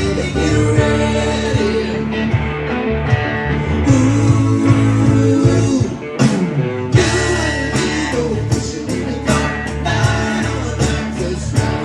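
A band playing a country-rock song with guitar and singing. About six seconds in there is a falling slide, and the bass drops out for a moment before the full band comes back in.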